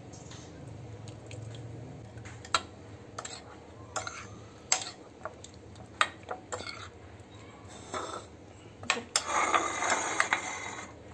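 Metal spoon stirring a wet sauce in a ceramic bowl and clinking against its side. Single sharp clinks come every second or so from about two seconds in, then a quick run of scraping and clinking near the end.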